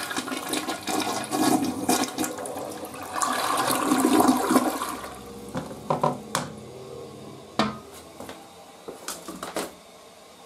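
Toilet flushing: water swirls and gurgles loudly down the bowl for about five seconds, then drops to a quieter steady rush of water. A few sharp clicks come in the second half.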